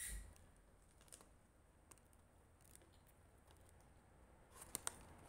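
Someone biting into a Subway sandwich, a short sound right at the start, then chewing at near silence with faint scattered clicks and a cluster of sharper clicks near the end.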